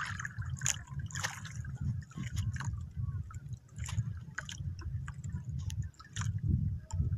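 Water lapping and sloshing against a small wooden outrigger boat, with a few light clicks.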